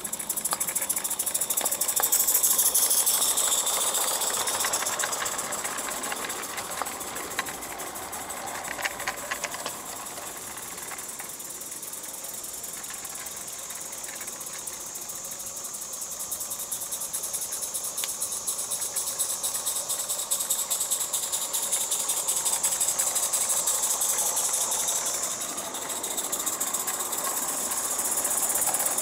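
Scratch-built 16mm-scale live-steam model of the Hunslet 2-6-2T Russell working a train: rapid exhaust beats and steam hiss. It is louder about two seconds in and again in the last few seconds.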